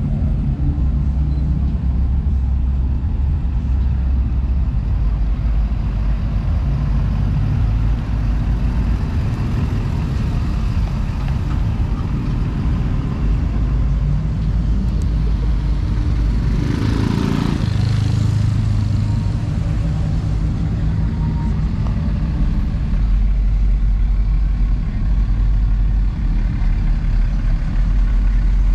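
Pickup truck engines running with a steady low rumble that shifts in pitch as trucks move, and a brief rush of noise about two-thirds of the way through.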